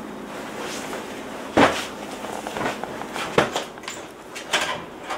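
A few sharp knocks and clicks, the loudest about a second and a half in: footsteps crossing to a wooden door, then its knob and lock being worked.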